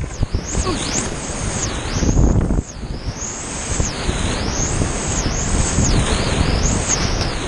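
Big-volume whitewater rapids rushing and breaking around a kayak, with waves splashing over the bow close to the boat-mounted camera; the river is running high. The level drops suddenly about two and a half seconds in, then builds back.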